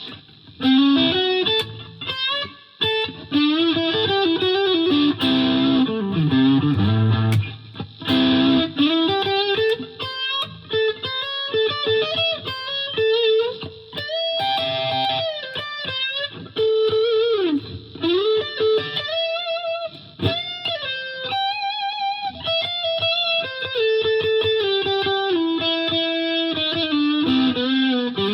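Electric guitar, a 2006 Gibson Les Paul Classic with a Seymour Duncan SH-1 humbucker, played through a Fender Mustang LT50 amp on an overdriven tone. It plays single-note licks with string bends and vibrato, in phrases broken by short pauses.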